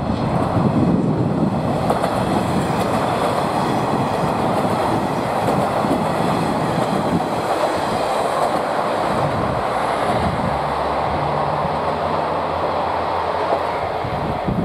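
Multi-car passenger train passing close by, wheels rolling and clacking over the rail joints with a steady rumble. A low steady hum joins in about ten seconds in.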